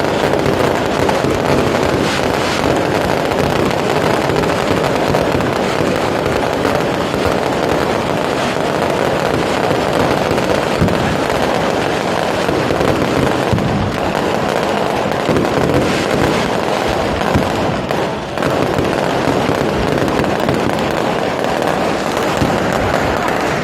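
A dense, continuous barrage of firecrackers crackling without a break, from a ceremonial electronic fireworks display.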